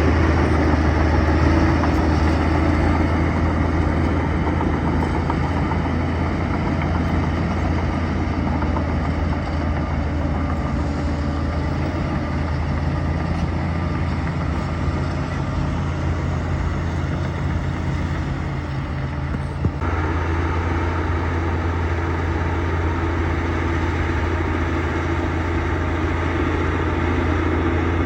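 Bulldozer's diesel engine running steadily while clearing brush, with a brief knock and a slight change in the engine's note about two-thirds of the way through.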